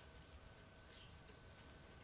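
Near silence: room tone with a faint steady high tone.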